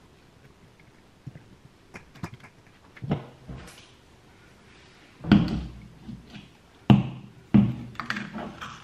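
Knocks and clicks of food and containers being handled on a kitchen counter: celery stalks set into stainless steel dog bowls, then a plastic bottle picked up. Three louder knocks come in the second half.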